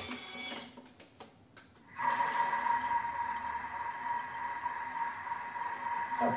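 Thermomix TM5 motor starting about two seconds in and running steadily with a constant whine, briefly stirring a liquid dressing in its mixing bowl.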